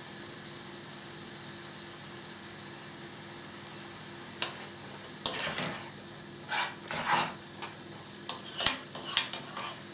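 A spoon stirring and scraping through grated doodhi (bottle gourd) cooking in reducing milk in a pan: a faint steady hum at first, then from a little under halfway through, a run of irregular scrapes against the pan.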